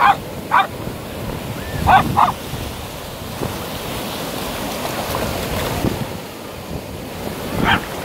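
Surf washing in over the shore, with wind buffeting the microphone. A small Lhasa Apso gives a few short, high barks over it: two at the start, a pair about two seconds in, and one near the end.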